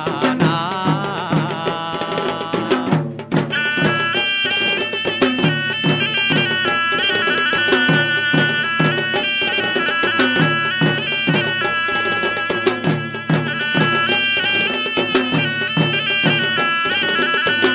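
Traditional Sri Lankan drums beaten in a steady rhythm under a shrill reed-pipe melody. The pipe breaks off briefly about three seconds in, then goes on in held, stepping notes.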